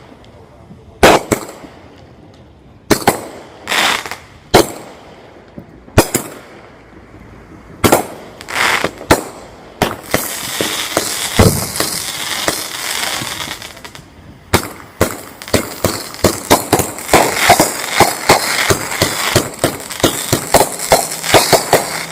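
A 500-gram aerial firework cake firing: single loud shots a second or two apart, then a stretch of crackling hiss about ten seconds in, then a rapid barrage of bangs and crackles.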